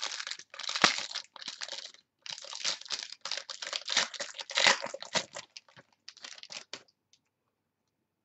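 A card pack's wrapper crinkling and tearing as it is opened by hand, in fast irregular crackles that stop about seven seconds in.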